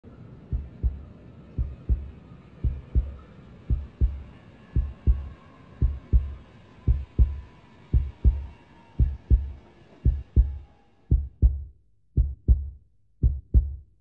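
Heartbeat sound effect: slow double thumps, lub-dub, about once a second, over a faint steady background tone that fades out about eleven seconds in.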